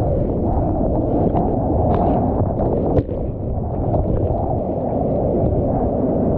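Whitewater of a breaking wave churning over a board-level action camera: a steady, muffled rush of water, with a sharp knock about three seconds in.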